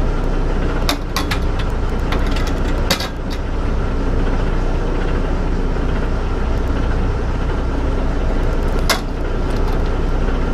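Fishing boat's engine running with a steady low rumble. A few sharp knocks sound about a second in, around three seconds in, and again near nine seconds.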